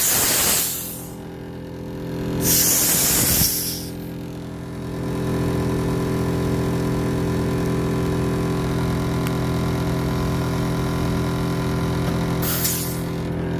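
Air compressor running steadily as compressed air is fed into a motorcycle tire sealed with plastic wrap, to seat its bead. Loud bursts of hissing air come at the start, about three seconds in, and near the end.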